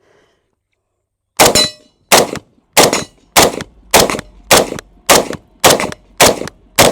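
IWI Tavor 7 semi-automatic rifle in 7.62 NATO (.308) firing ten rapid shots, about one every 0.6 seconds, starting just over a second in.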